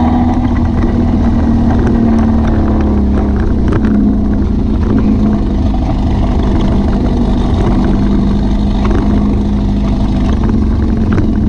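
VW beach buggy's engine running steadily with an even drone.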